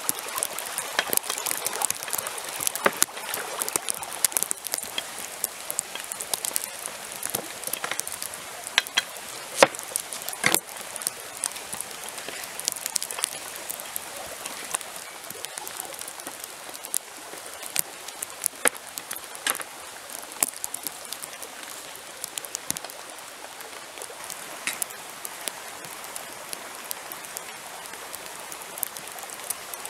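Sharp clicks and scrapes of a cleaver-like knife shaving carrots on a wooden board, over the steady rush of a small stream. The clicks come thick for about twenty seconds, then thin out.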